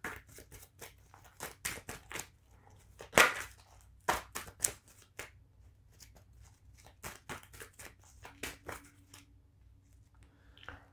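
A deck of oracle cards being shuffled by hand: a run of irregular soft snaps and clicks, with two sharper snaps about three and four seconds in.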